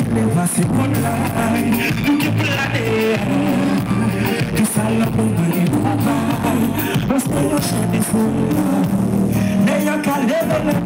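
Live band playing through a large outdoor PA: a singer over drums and guitar, loud and steady.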